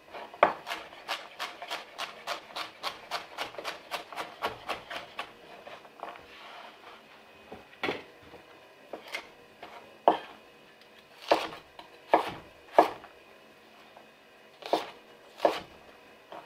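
Chef's knife chopping vegetables on a wooden cutting board: a quick, even run of about four chops a second for the first five seconds, a brief soft scrape, then slower single cuts spaced a second or so apart.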